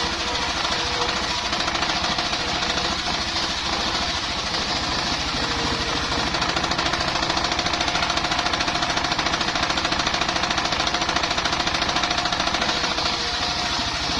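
Engine-driven circular sawmill running with a fast, even engine beat and a steady whine from the saw blade. It grows somewhat louder about six seconds in and eases off again near the end.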